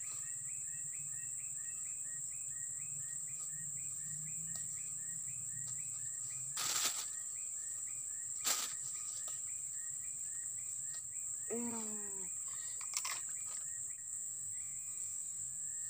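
Outdoor wildlife ambience: a steady high-pitched insect drone, with a bird repeating a short chirp about twice a second that pauses after about nine seconds and resumes near the end. A few sharp clicks and one brief falling call cut in.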